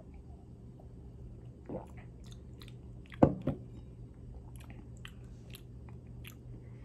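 Mouth sounds of a man drinking from a glass and tasting: small lip smacks and clicks, with a louder pair of mouth sounds a little after three seconds in, over a faint steady room hum.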